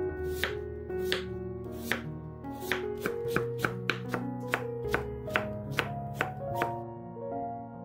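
Stainless steel kitchen knife cutting Korean radish (mu) on a wooden cutting board, first into thin slices, then into thin julienne strips, in quick even strokes about two to three a second that stop shortly before the end. Background music with sustained notes plays under the chopping.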